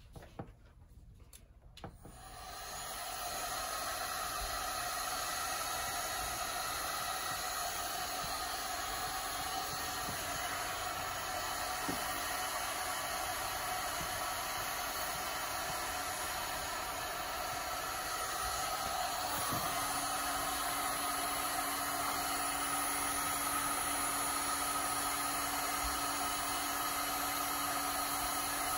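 Heat gun switched on about two seconds in and blowing steadily, heating a stuck threaded part of a mountain-bike rear shock to loosen it. It gets a little louder from about eighteen seconds in.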